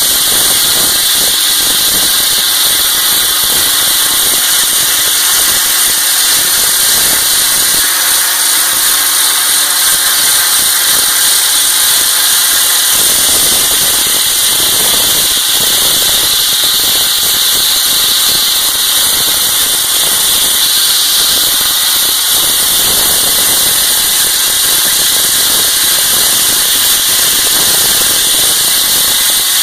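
Slurry (wet abrasive) blasting nozzle hissing steadily as it strips paint from a concrete wall, with an engine running underneath.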